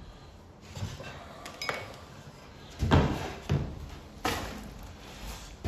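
Plywood pieces being handled on a wooden workbench: a series of separate knocks and scrapes as the boards are slid and set down, the loudest about three seconds in and again near the end.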